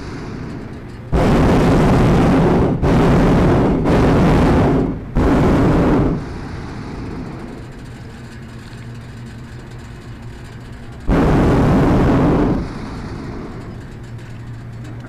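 Hot-air balloon's propane burner firing: four blasts of about a second each with short breaks, starting about a second in, then one longer blast about eleven seconds in.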